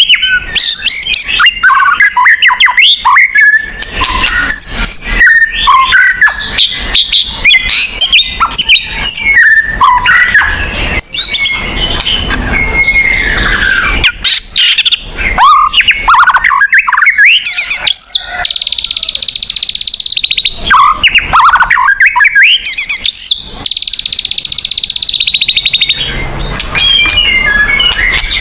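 White-rumped shama (murai batu) singing a loud, fast, varied song of whistled notes, slurs and chirps. Twice in the second half it breaks into a long buzzy rattle.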